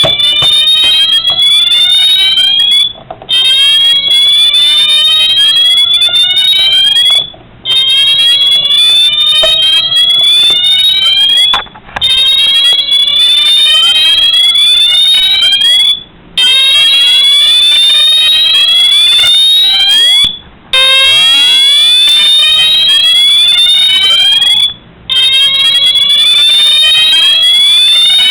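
Wheelock MT fire alarm horn sounding a loud, repeating rising sweep. Each upward whoop lasts about four seconds and is followed by a brief break before the next one starts.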